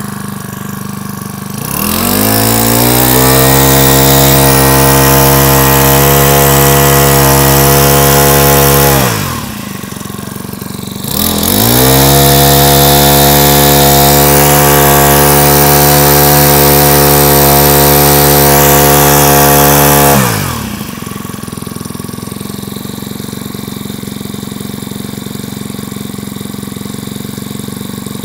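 Makita MEM427 26cc four-stroke brush cutter engine idling, then revved to full throttle twice for about seven and nine seconds, rising into a high steady note and falling back to idle after each. It runs smoothly, which the seller calls very quiet and even.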